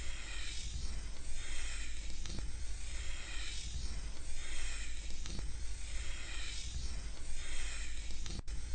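Chalk scraping on a blackboard as it draws straight lines, in repeated strokes a little over a second apart, each swelling and fading.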